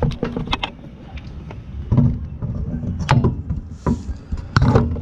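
A car wheel being handled and pushed onto the hub adapter's studs: a series of sharp knocks and dull clunks, loudest about two, three and nearly five seconds in. The adapter studs are too long, so the wheel won't sit flush.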